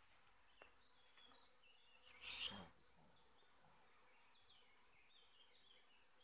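Near silence with faint honeybees at the hives and scattered high bird chirps; a brief louder whoosh about two seconds in.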